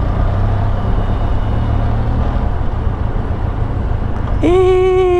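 Steady low rumble of engines in stop-and-go city traffic. About four seconds in, a vehicle horn starts sounding one loud, held note.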